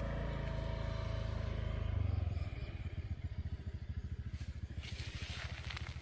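A small engine running, first as a steady low hum and then, from about two seconds in, as a rapid, even low throb.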